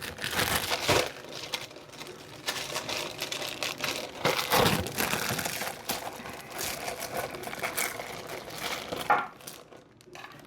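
Packaging crinkling and rustling in irregular bursts as it is handled and pulled open, with scattered light clicks, tapering off near the end.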